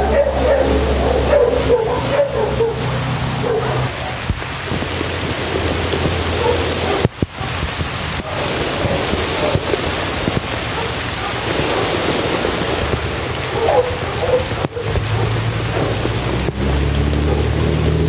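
Steady rain falling on wet paving over a low steady hum, with a dog barking now and then in the first few seconds and again about two-thirds of the way through.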